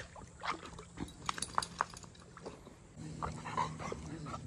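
A dog whimpering in a few short, high-pitched cries, with a steady low rumble coming in about three seconds in.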